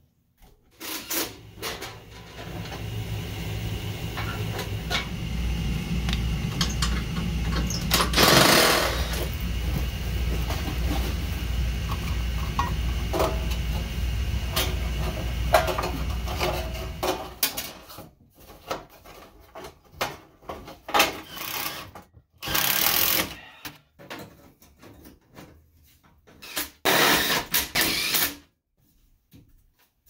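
A cordless drill runs steadily for about fifteen seconds, with a louder surge about eight seconds in. After that come scattered clanks and rattles of galvanized sheet-metal duct pieces being handled and fitted.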